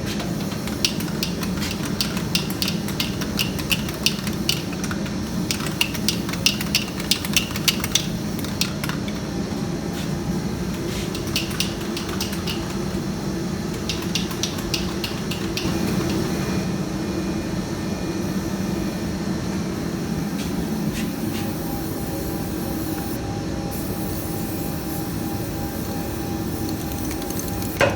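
Aerosol spray-paint can being shaken, its mixing ball rattling in quick runs of sharp clicks, and later a spray hiss, over a steady low hum.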